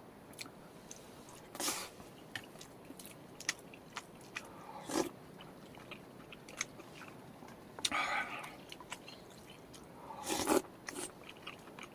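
A person biting and chewing something crunchy, quietly: four short crunches spread over the stretch among scattered small clicks.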